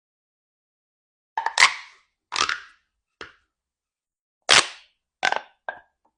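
Mini pop tube, a corrugated plastic toy tube, popping as its ridges snap: about six sharp pops at uneven intervals, the first two close together, starting about a second and a half in.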